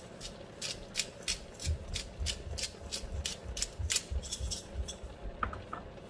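Hand-twisted pepper grinder cracking black peppercorns: a steady run of ratcheting clicks, about three a second, stopping about five seconds in.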